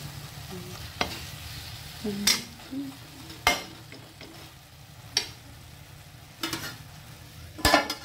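Fenugreek leaves frying in a metal kadhai, a soft sizzle as their leftover water cooks off, under a metal spatula stirring and scraping. The spatula strikes the pan sharply about every second or so, and a metal lid clatters onto the pan near the end.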